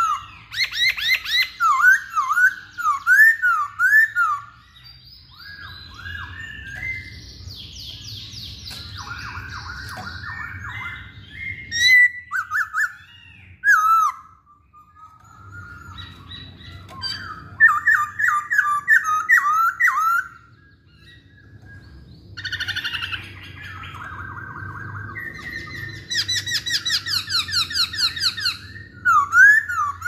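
Black-throated laughingthrush (poksay Hongkong) singing loudly in long bursts of rapid, repeated whistled notes that swoop up and down, mixed with faster buzzy runs. There are short pauses between phrases, about a third and two-thirds of the way through.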